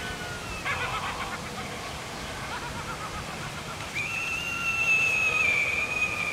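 Halloween haunted-house decoration playing its spooky sound effects through a small speaker: a wavering burst about a second in, then a long, high wail from about four seconds in that slowly falls in pitch.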